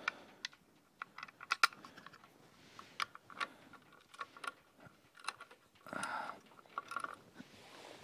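Small clicks, taps and rustles of hands handling a fishing rod holder mount and its nut hardware while fitting them to a bicycle frame, with a short scraping rustle about six seconds in.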